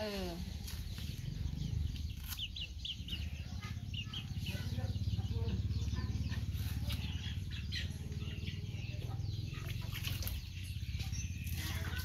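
Chickens clucking and chirping, with short high calls scattered throughout, over a steady low rumble.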